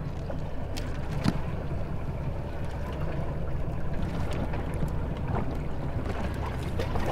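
Steady low hum of the boat's Yamaha outboard engines idling, with a couple of faint clicks about a second in.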